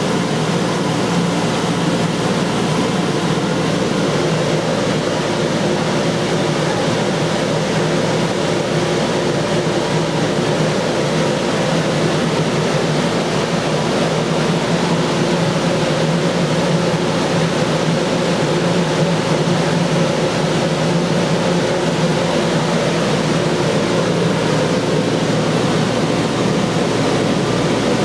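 Electric blower fans keeping inflatable bounce houses inflated, running steadily: a loud, even rushing noise with a low hum underneath.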